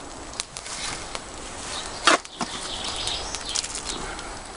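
Steel garden spade scooping compost and tipping it into a wooden planting box: soft rustling and scraping, with one louder sharp stroke of the blade about two seconds in.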